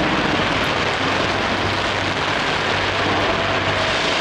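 Fireworks going off around Taipei 101: a steady, dense wash of noise from many shells at once, with no single bang standing out.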